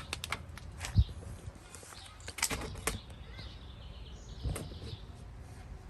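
Scattered clicks and knocks of hand work on car parts, with a dull thump about a second in and a cluster of sharper clicks near the middle.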